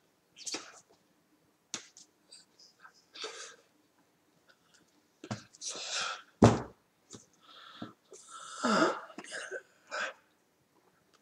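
A man's short breathy mouth and throat noises, scattered sniff- and puff-like sounds, with a sharp thump about six and a half seconds in and a longer voiced sound, bending in pitch, a little before the end.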